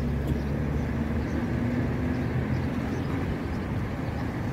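Steady outdoor background noise: an even rumble with a low hum that fades about a second in, the kind of ambience left by nearby traffic or wind on a handheld microphone.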